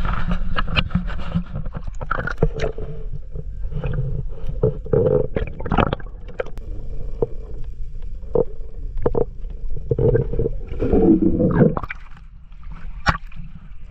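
Water heard through a camera mounted on a fish landing net as the net is plunged underwater: muffled gurgling and low rumbling with many sharp knocks and scrapes against the housing. Near the end the net is hauled out with splashing water.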